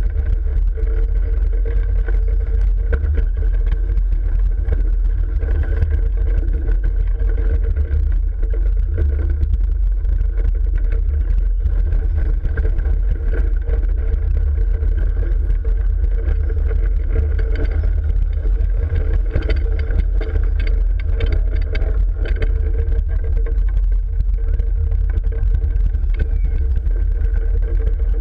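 Rutschebanen wooden roller coaster train running along its track: a steady low rumble of the wheels with a steady whine above it, unbroken throughout.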